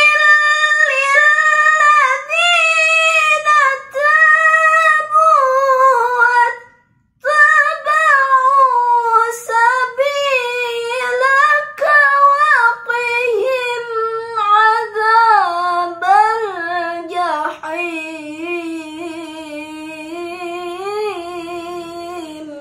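A teenage girl's solo voice chanting Quran recitation in the melodic, drawn-out contest style, with long held and ornamented notes. She breaks for a breath about seven seconds in, then sings one long phrase that sinks lower in pitch and stops just before the end.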